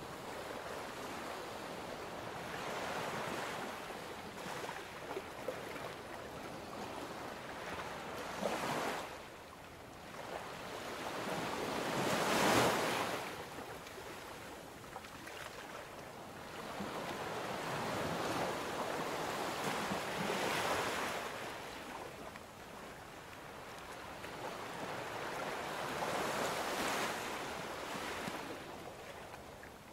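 Ocean surf: waves washing in and drawing back, swelling and fading every few seconds, loudest about twelve seconds in.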